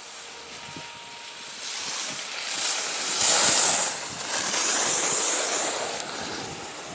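Rushing noise of skiing downhill: skis sliding and scraping over packed snow, with wind on the microphone. It swells about two seconds in, is loudest around the middle, and eases off near the end.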